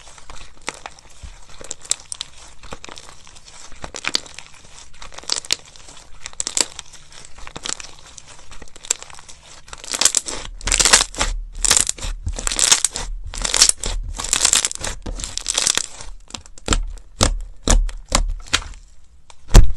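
Slime being squeezed and pressed by hand, giving sticky clicks and crackles. About halfway through it turns into a run of louder, longer squelching pulls, roughly one every second.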